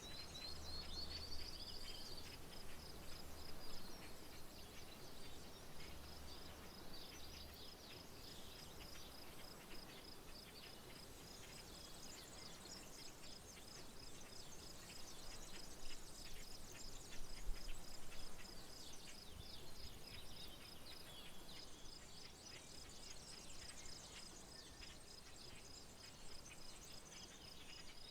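Outdoor countryside ambience: a steady, evenly pulsed high insect trill runs throughout, with many short bird chirps scattered over it. A faint low hum sits underneath for roughly the first eight seconds.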